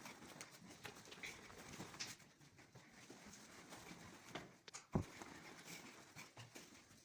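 Quiet room tone with faint scattered clicks and rustles, and one sharp knock about five seconds in.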